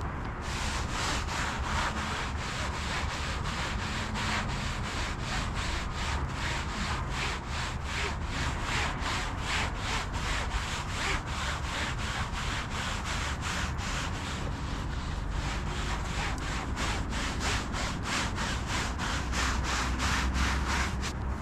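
Rhythmic scraping strokes, about two to three a second, kept up steadily over a low rumble.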